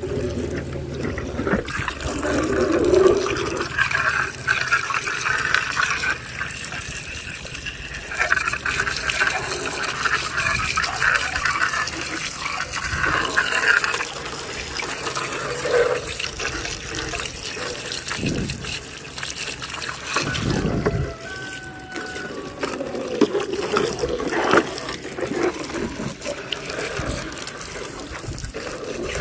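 Water running and splashing unsteadily as mud is washed off a toy vehicle.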